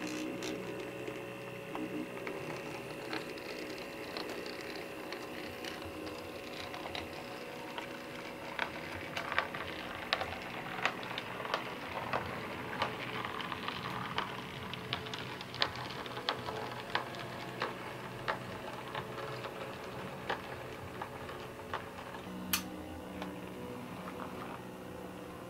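Sn2½ model steam locomotive running along the track, its motor and gear drive whirring steadily, with irregular light clicks from the wheels and track, more frequent in the middle. A sharper tick comes near the end.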